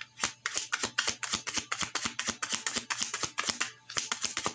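A deck of tarot cards being shuffled by hand: a rapid, uneven run of sharp card snaps that thins out near the end.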